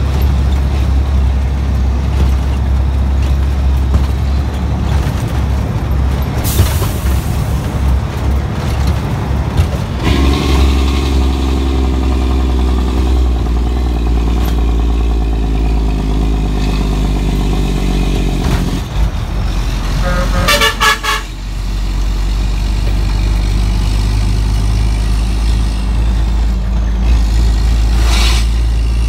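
Dump truck's Detroit Diesel 12.7-litre engine running steadily under way, with a deeper pulling note from about ten to eighteen seconds in. A brief hiss comes about six seconds in, and a horn toots for about a second around two-thirds of the way through.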